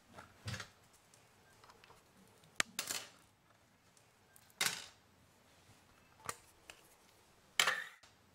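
Metal bracelets clinking as they are taken off and set down on a bathroom countertop: about six separate clicks and clacks, some with a short ring.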